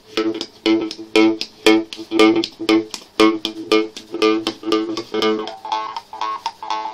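Jew's harp (vargan) played with rhythmic plucks, about two to three a second, over a steady drone, the mouth shaping the overtones into a twanging melody. About five and a half seconds in, the overtone melody moves higher.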